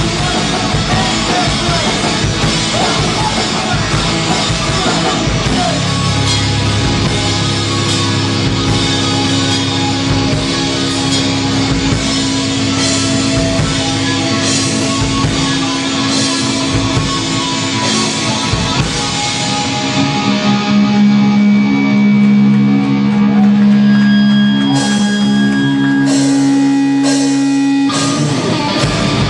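Hardcore band playing live: distorted electric guitar and bass over drums. About six seconds in, the playing settles into long held chords, and a few separate crashes ring over them near the end.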